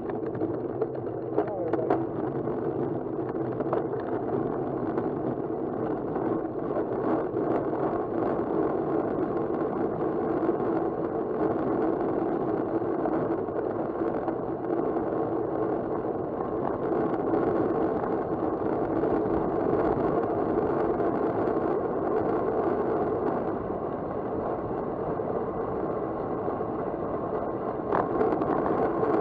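Steady rush of wind over a handlebar-mounted camera's microphone with road-bike tyre noise on asphalt at speed, plus a few sharp clicks about two seconds in and near the end.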